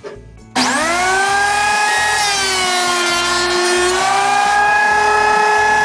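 Benchtop electric thickness planer switched on about half a second in: the motor and cutterhead whine up to speed within half a second, then run with a steady high whine as wooden laths are fed through, the pitch shifting slightly under the load.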